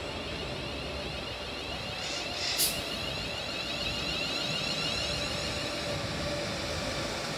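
Class 350 Desiro electric multiple unit running slowly past into the platform, a steady rumble of wheels and running gear with faint high whining tones. A short, sharp high-pitched burst stands out about two and a half seconds in.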